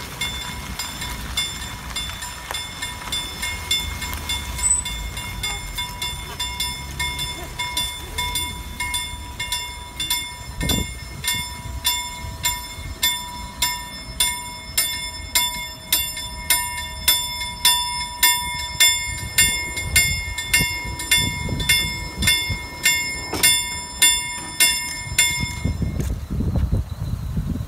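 Level-crossing warning bell ringing in a steady rhythm, about three strikes every two seconds, signalling that the barriers are lowering for an approaching train. It grows louder and stops suddenly near the end, over a low rumble.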